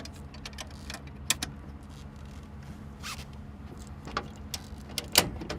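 Air cleaner cover being unclipped and handled, a series of sharp clicks and snaps, the loudest near the end, over a steady low hum.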